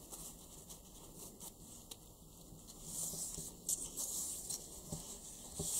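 Satin gift ribbon rustling and rubbing under the fingers as a bow is pulled tight and its loops are shaped. The rustling grows louder about three seconds in, with a couple of short ticks.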